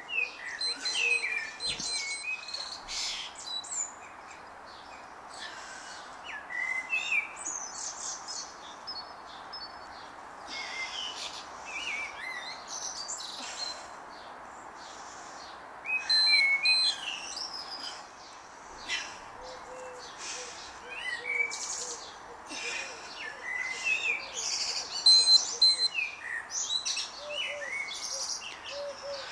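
Songbirds singing and chirping in many short calls that rise and fall in pitch, over a steady background hiss.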